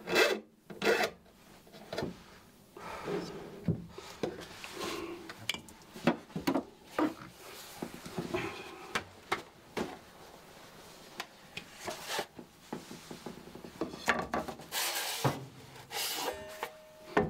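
A saw file scraping across the teeth of a Japanese ryoba saw in short, irregular strokes, a final touch-up of the teeth's top bevels. The steel blade is rubbed and handled between strokes.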